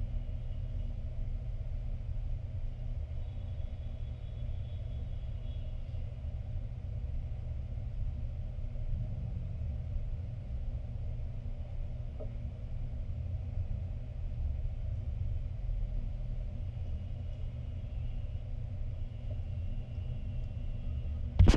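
Steady low rumble with no clear source, and a sudden loud knock near the end as the camera is picked up and handled.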